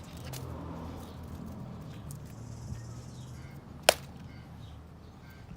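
A single slashing cut: a large knife blade swings and strikes a pineapple with one sharp whack about four seconds in.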